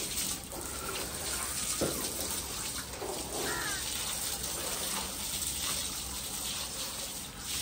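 Water spraying steadily from a garden hose and splashing down onto people and a concrete floor, a continuous hiss.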